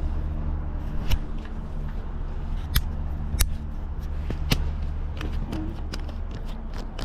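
Sharp clicks and small knocks of small engine parts being handled and pushed into place, four louder clicks among many lighter ticks, over a steady low hum.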